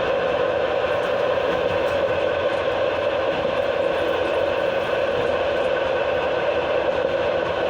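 Passenger-car wheels rolling on the rails while the brake shoes grind against the wheel treads under continuous braking on a long downgrade. It is a loud, steady grinding noise with a steady tone running through it, heard through the open toilet chute in the car floor.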